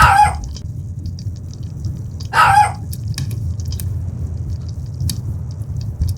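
Fireplace fire burning with a steady low rumble and scattered sharp crackles and pops. Two brief louder sounds stand out, one at the start and one about two and a half seconds in.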